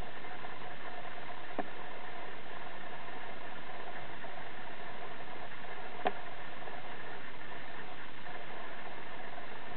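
Steady hiss of background noise with a faint hum, broken by a couple of faint clicks.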